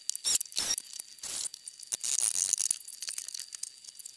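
Irregular clinks, rattles and scrapes of small metal parts and tools being handled on a workbench.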